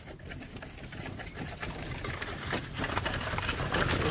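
A horse's hooves clopping in an irregular patter, growing steadily louder as it approaches.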